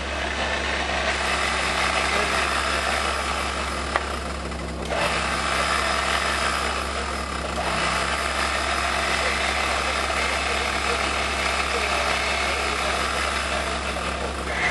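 Engine of a modified off-road 4x4 running steadily at low revs.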